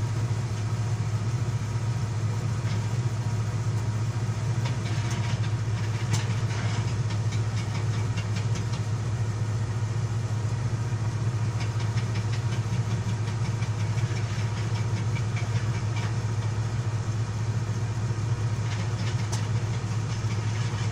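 Komatsu 220 excavator's diesel engine running with a steady low drone, while its hydraulic breaker hammers hard rock in stretches of rapid blows, several seconds at a time, starting a few seconds in, again around the middle and near the end.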